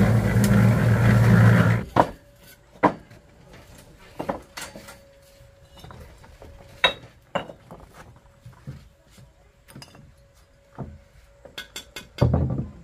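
A motor engine running with a steady low drone, cut off abruptly about two seconds in. After it, scattered light clinks and knocks, like dishes or utensils being handled, with a short low thud near the end.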